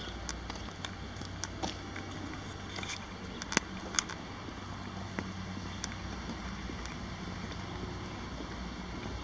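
Caterpillar 3126 inline-six turbo diesel of a dump truck idling with a steady low hum. Scattered sharp clicks sit over it, the loudest two about three and a half and four seconds in.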